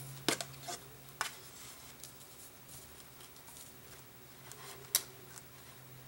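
Dental floss being pulled through a hole in a paper pamphlet while sewing a three-hole pamphlet stitch: faint paper rustling and handling with a few light ticks, the sharpest about five seconds in.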